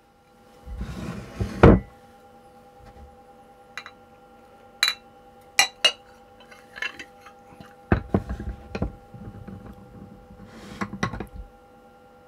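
Ceramic mug and small porcelain plate being handled on a wooden table, upturning the mug onto the plate to turn out a pudding: a rubbing rumble with a knock, a run of sharp clinks, then dull thumps and more clinks as the dishes meet the tabletop.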